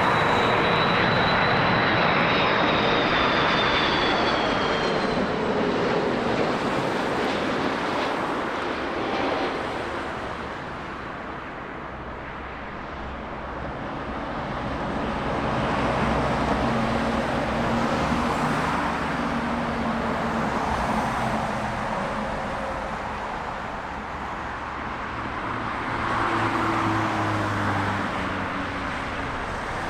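Jet airliner engines running as the aircraft passes. The sound is loud at first with a high whine that falls in pitch over the first few seconds. It eases off, then swells twice more.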